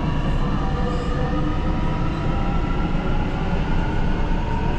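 Xi'an Metro train running: a steady rumble of wheels on track with a faint steady whine above it.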